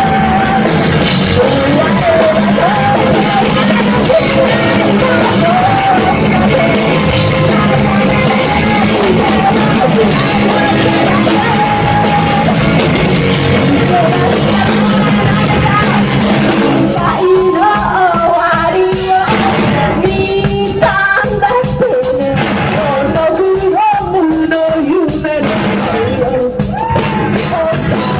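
A live band with electric guitar, bass guitar and drums plays loud, with a singer. About two-thirds of the way through, the dense full-band sound thins out and the sung melody stands out over sparser playing.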